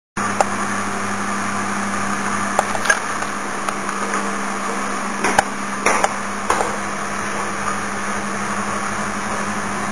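Steady mechanical hum with an even rushing noise, broken by a few short clicks and knocks about half a second, three, five and six seconds in.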